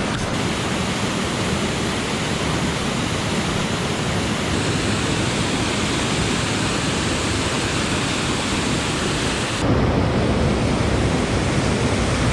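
Mountain stream water rushing steadily over rocks. About ten seconds in the sound abruptly changes to a deeper, slightly louder rush.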